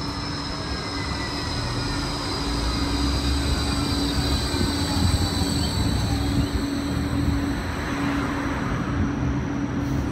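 Bombardier Flexity 2 light-rail tram pulling into the platform and slowing, its electric whine falling in pitch over a steady low hum and rumble.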